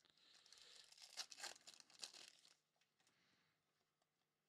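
Faint crinkling and tearing of a foil trading-card pack wrapper being ripped open, lasting about two and a half seconds before fading out.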